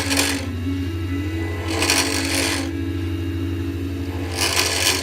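Small wood lathe's motor running steadily with a hum, while a turning tool is drawn across the spinning acrylic pen blank in three short scraping passes, about every two and a half seconds.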